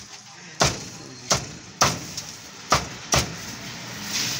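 A cleaver chopping through a roasted bird onto a wooden chopping block: five sharp chops at irregular intervals, roughly one every half second to a second.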